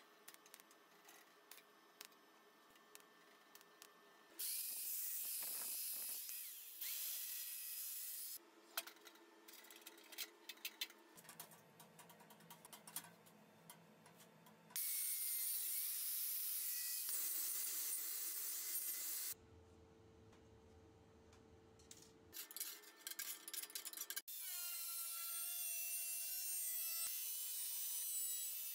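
Metal workshop sounds in several cut-together stretches: quiet clicks and handling, and loud hissing bursts. For the last few seconds, a Bosch angle grinder cuts a stainless steel sheet, its whine carrying several steady tones.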